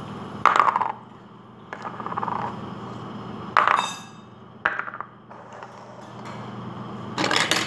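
Hollow plastic toy surprise eggs being pulled apart and set down on a table: a handful of sharp plastic clicks and knocks. One of them, about three and a half seconds in, rings briefly with a ping.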